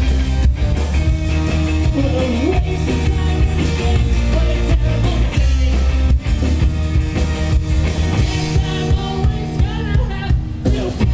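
Indie rock band playing live: electric guitars and drums, with a singing voice at times.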